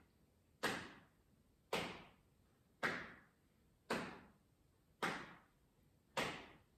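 Hands whacking the relaxed buttocks just behind the hip bones in a self-massage warm-up, six sharp slaps at an even pace of about one a second.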